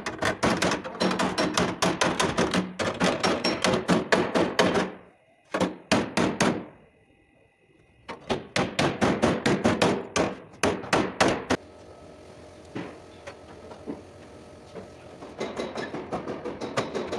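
Hammer blows on car body sheet metal, several a second, as a rear wheelhouse and apron panel are beaten. There is a short pause about six seconds in. The blows stop about twelve seconds in, leaving low workshop background, and faster, fainter tapping starts near the end.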